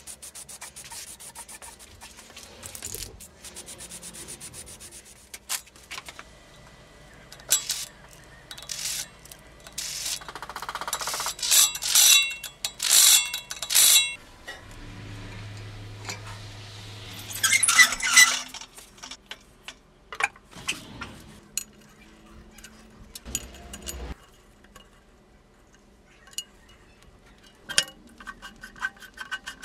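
Assorted workshop sounds from working on a steel stand: scattered clicks, light metal knocks and rubbing. About halfway there are three loud hissing bursts close together, then a few seconds of low hum and another hissing burst.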